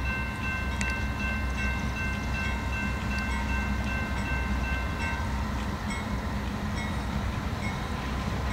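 Low rumble of an approaching CSX freight train. A distant horn chord is held until about five seconds in, then stops.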